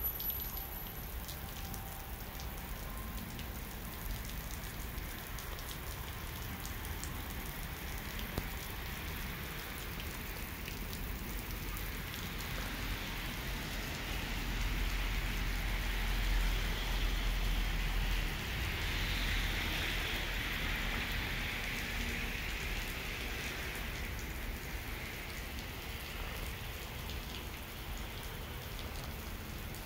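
Steady rain-like hiss and patter of water spattering on wet pavement, growing louder for several seconds in the middle with a low rumble.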